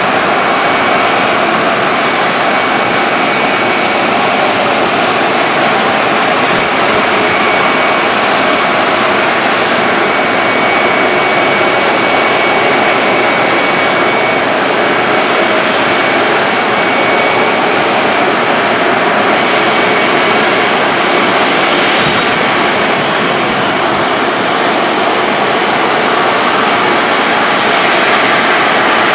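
Boeing 747-400D's four jet engines running at taxi power as the airliner taxis: a steady rushing roar with a faint high whine held throughout.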